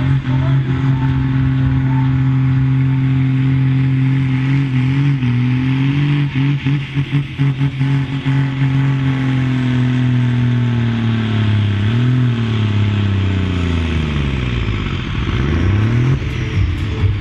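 John Deere tractor's diesel engine running hard under full load, pulling a weight-transfer sled, with a steady engine note. Late on the pitch sags and wavers as the sled's load pulls the revs down, then picks up again.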